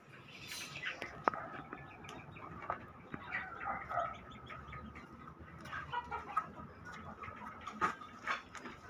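Faint, scattered bird calls in the background, with a single sharp click about a second in.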